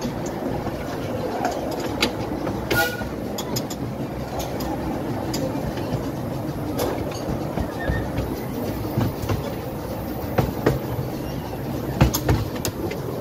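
Open carriage of a 12¼-inch gauge miniature steam railway train running along the track: a steady rumble of wheels on rail, with scattered sharp clicks from the rail joints.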